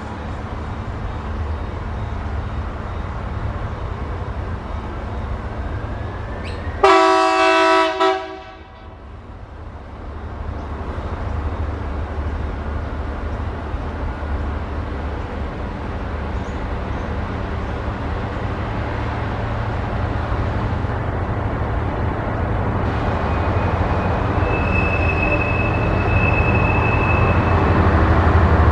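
Pacific National diesel-electric locomotive PN001 working hard under full power as it hauls a heavy container train up a grade. Its engine drone is steady and grows louder as it approaches. One chord horn blast of about a second and a half sounds about seven seconds in.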